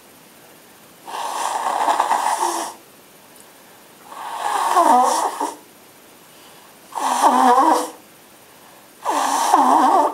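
A person blowing their nose hard into a handkerchief, four long blows one after another, the later ones with a wavering honk.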